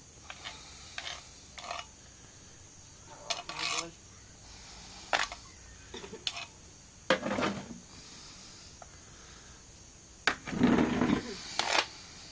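Irregular short rubbing and scuffing noises, with the loudest cluster near the end.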